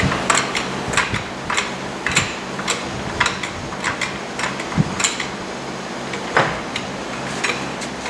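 Hydraulic floor jack being pumped up to take the weight of a minivan sliding door: a run of sharp metallic clicks and clanks, about two a second at first, then more spaced out.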